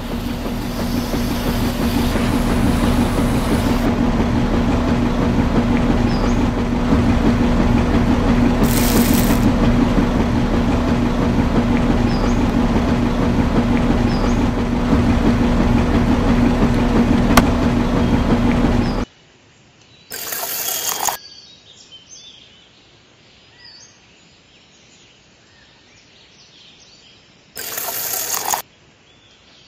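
Small battery-powered DC motor turning a toy concrete mixer drum, a loud steady hum that cuts off suddenly about 19 seconds in. After that it is much quieter, with two short rushing noises, the second near the end.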